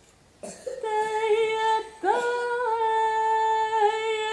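A woman's voice singing long, held wordless notes, with a brief break and an upward scoop into the second note about two seconds in.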